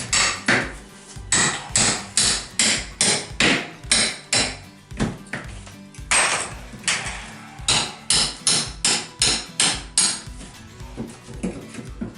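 Hammer striking again and again, about two to three blows a second, knocking pieces of an old bathroom wall loose during demolition. The blows pause briefly about halfway through and grow fainter near the end.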